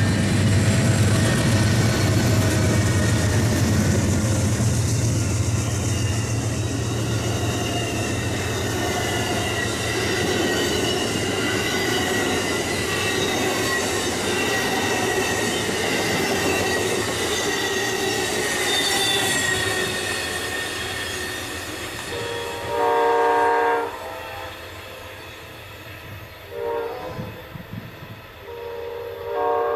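Amtrak California Zephyr passing close by: the diesel drone of its two GE Genesis locomotives for the first few seconds, then the cars rolling past with high squealing tones that slide slowly down in pitch, fading as the train moves away. A locomotive horn sounds in the last third: one blast of about a second and a half, a short toot, then another blast near the end.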